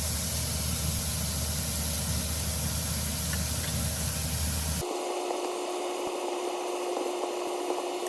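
Steady sizzling hiss of food frying in a pan over a low hum. About five seconds in it cuts abruptly to a different take with a steady mid-pitched hum under the hiss.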